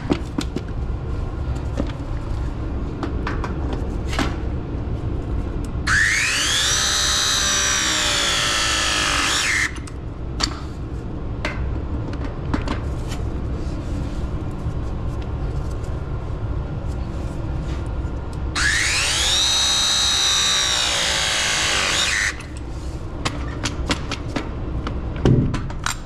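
Battery-powered press tool crimping copper press fittings, twice, each press a motor whine of about three and a half seconds that bends in pitch and cuts off sharply. Light clicks and knocks of handling come between the presses.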